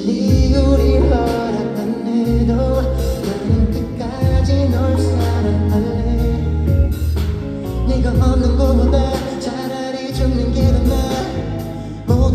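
A live pop song sung over a heavy bass line and drums, played loud through a concert sound system.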